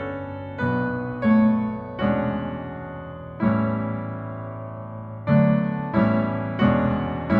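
Background music: slow, soft piano. Chords are struck every second or so and left to ring out and fade.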